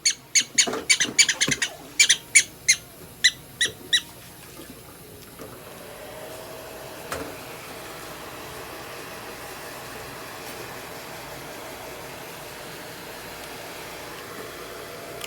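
A prairie dog giving about a dozen sharp, high chirping calls in quick succession over the first four seconds. After that a steady rushing noise with a faint hum sets in and runs on.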